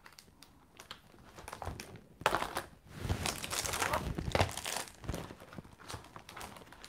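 Crinkling and rustling of packaging being handled, in irregular crackles that start faint, grow loudest in the middle and thin out near the end.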